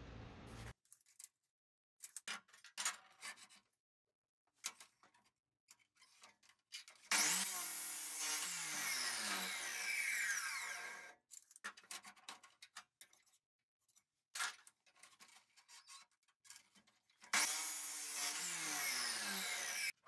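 Abrasive metal chop saw cutting steel tube, two cuts of about four and three seconds, its pitch sliding down as the disc bites. Between the cuts, short clinks and taps of steel pieces being handled on a steel table.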